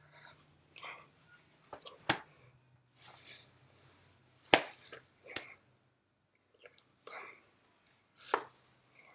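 Hands slapping and clapping against each other and the body while signing in American Sign Language: several sharp slaps, the loudest about halfway through, with soft breathy mouth sounds between them.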